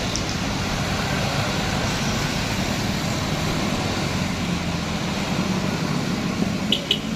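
Steady road traffic noise: a large vehicle's engine running and tyres on the road. Two short high beeps near the end.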